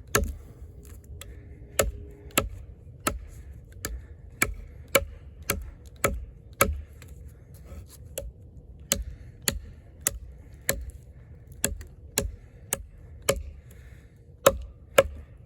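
A heavy fixed-blade camp knife with a thick AUS-10 steel blade chopping into a wooden log: a steady series of sharp strikes, about one every half second or so, with a brief pause about halfway through.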